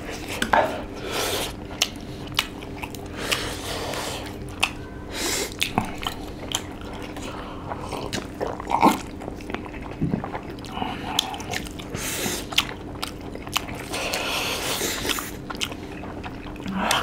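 Close-up eating sounds: spicy instant noodles being slurped and chewed, with many short wet smacks and clicks throughout.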